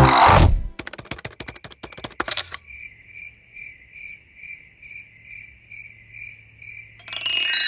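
The tail of music fades, then a quick run of clicks. Cricket-like chirping follows, even and about two to three chirps a second, and a bright bell-like chime rings out near the end.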